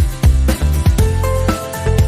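Background music: an upbeat pop track with a steady drum beat, bass and a melody line.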